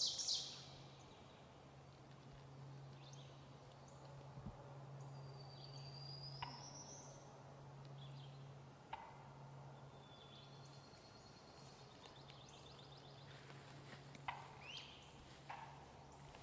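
Quiet woods with songbirds singing faintly: a rising whistle, short chirps and a trill. A wild turkey gobbler gives a few sharp single 'putt' calls, the alarm call of a spooked turkey, the loudest about 14 s in. A faint steady low hum runs underneath.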